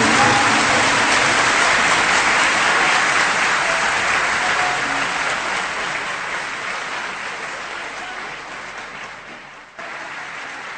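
Concert audience applauding after a sung phrase. The applause slowly dies away, dips sharply near the end, and then picks up again.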